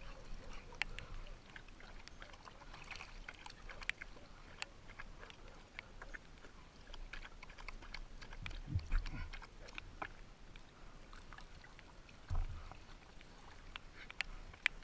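Light splashing and dripping of water with scattered small ticks, plus two short low thumps, one about nine seconds in and one about twelve seconds in.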